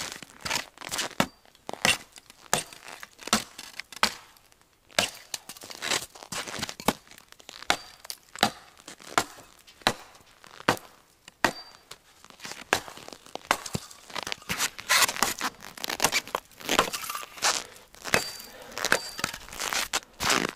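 Dry juniper branches being broken up for stove kindling: an irregular run of sharp wooden cracks and snaps, one to three a second, with crinkling of twigs between them.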